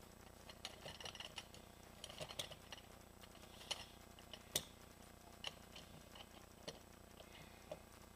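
Faint metallic clicks and clinks from a Ford C6 transmission's billet forward clutch drum being turned and worked back into place by hand, with one sharper click about four and a half seconds in.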